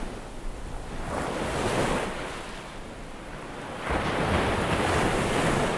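Rushing surf noise of ocean waves in two surges. The second surge comes in suddenly about four seconds in and is the louder one.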